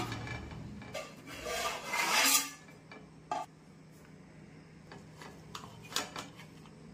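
Aluminium cooking pot and its lid being opened after steam (dum) cooking: a knock as the stone weight comes off the lid, then the metal lid scraping against the pot rim as it is slid off, and a short metal clink.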